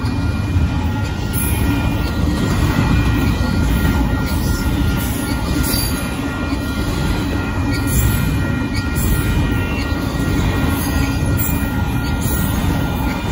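Union Pacific double-stack intermodal freight train rolling past at a grade crossing: a steady, continuous rumble and clatter of wheels on the rails as the container well cars go by. A thin, steady high squeal from the wheels runs over the rumble.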